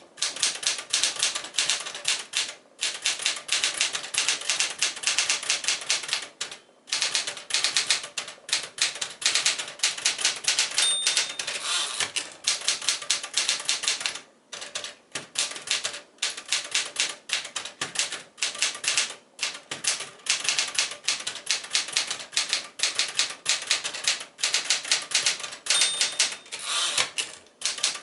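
1976 Smith-Corona Classic 12 manual typewriter being typed on: rapid runs of key strikes with short pauses between them. A brief bell-like ring sounds twice, the margin bell warning of a line's end.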